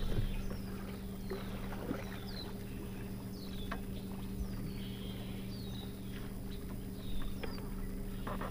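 Steady low hum of an electric bow-mount trolling motor pushing a bass boat slowly along, with a few light knocks and a bird's short, high, falling chirps repeating over it.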